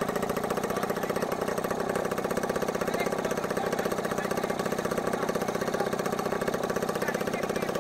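Ultralight aircraft engine running steadily during a ground run, a fast, even chatter of firing pulses with no change in speed.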